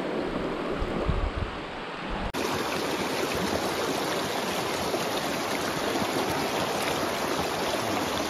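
Creek water rushing steadily over rocks in a shallow, fast-flowing trout stream. Low gusts of wind on the microphone in the first two seconds; about two seconds in the sound changes abruptly to a brighter, more even rush of water.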